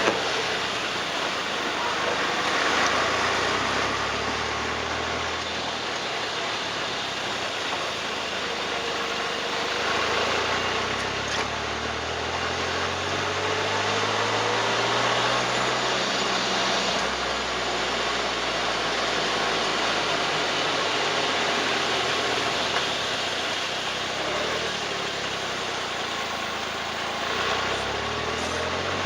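Turbocharged car driving: the engine's pitch rises and falls several times over steady road and tyre noise. The car has an abnormal noise that the owner suspects comes from the suspension or near the turbocharger.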